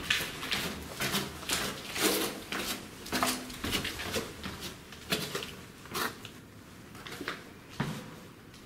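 Footsteps going down concrete stairs gritty with dust and debris, about two steps a second, each a short scuffing strike, growing fainter near the end.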